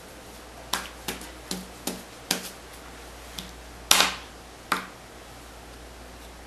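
A child tapping a marker down onto paper on a table: a string of about nine sharp, irregular taps, with the loudest about four seconds in.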